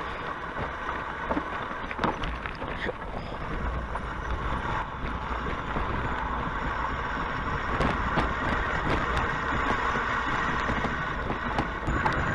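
Steady hiss of a bicycle being ridden on a wet road in the rain, with wind rumbling on the microphone and scattered faint ticks.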